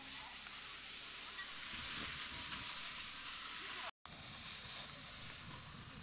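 Outdoor crowd ambience on a ski slope: scattered distant voices of skiers and children over a steady hiss. The sound cuts out for a moment about four seconds in.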